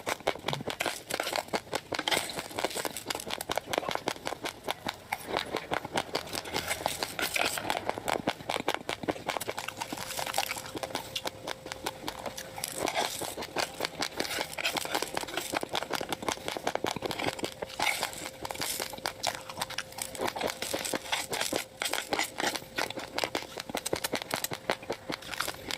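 Raw rice grains being chewed close to the microphone: a dense, irregular run of sharp crunching crackles.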